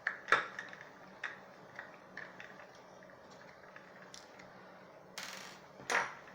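Small screwdriver backing the screws out of a headphone ear cup, with scattered light clicks and ticks of the driver and plastic parts. A brief scraping rustle about five seconds in, and a sharper click just before the end.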